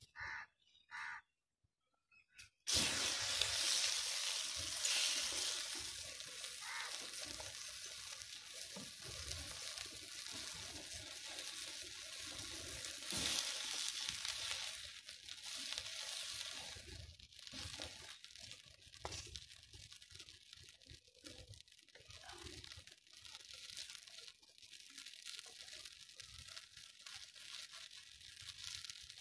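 Water poured onto a plate of burning petrol: a sudden loud hissing sizzle about three seconds in as the fire flares and spatters, then a steady sizzling crackle that slowly dies down, with a second surge around the middle.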